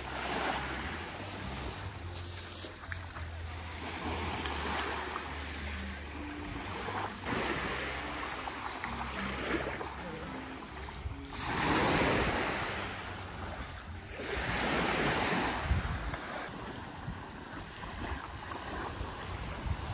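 Sea surf washing onto a beach, the wash swelling and fading every few seconds. A low steady rumble sits under it and fades out about halfway through.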